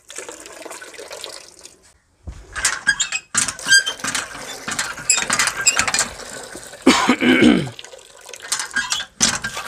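Hand pump being worked by its lever: the pump mechanism knocks and squeaks while water gushes from the spout into a bucket. The warm water standing in the pump is being drawn off so cold water comes through.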